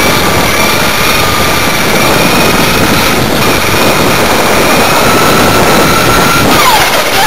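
A vehicle's motor runs with a steady whine over a loud rushing noise. Its pitch dips sharply near the end and starts to climb again as the speed changes.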